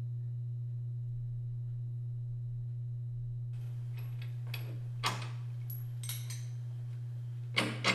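A steady low hum, with a few light metallic clinks and taps in the second half as a wrench and nut are worked on a truck's front suspension.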